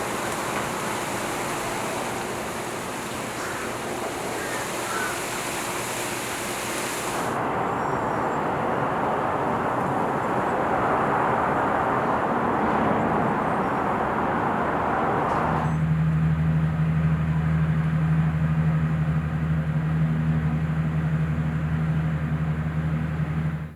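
Steady outdoor traffic noise that changes abruptly twice. In the last eight seconds a steady low engine hum takes over.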